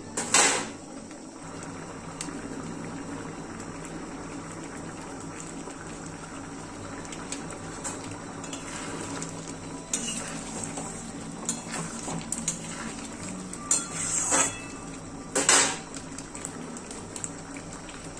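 A metal spoon knocking and scraping against a cooking pan over a steady low bubbling of the simmering egg tadka curry. There is one loud clatter just after the start, two more near the end, and lighter clicks in between.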